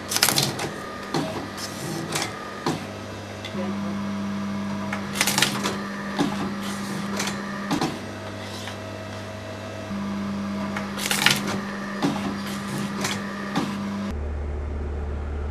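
Morsø EH electro-hydraulic mitre guillotine cutting wooden picture-frame moulding over a steady machine hum. Its knives make clusters of sharp cutting strokes, the loudest right at the start, about five seconds in and about eleven seconds in, as it runs its automatic two-cut cycle of a rough cut and then a shaving cut. Near the end the hum changes to a deeper one.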